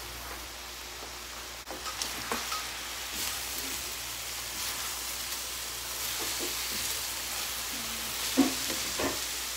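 Chicken pieces, onion and tomatoes sizzling in oil in a hot metal wok while a wooden spatula stirs them. The spatula knocks and scrapes against the pan now and then, the loudest knock near the end, and the sizzle grows a little louder a few seconds in as the stirring starts.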